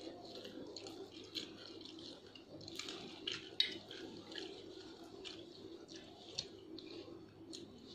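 Metal spoons scraping and clicking against steel plates of rice in short, irregular strokes, over a faint steady hum.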